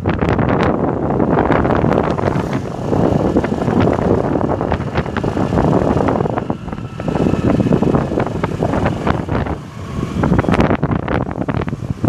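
Wind buffeting hard on a phone microphone carried on a moving two-wheeler, in uneven gusts, with the vehicle's running engine and road noise underneath.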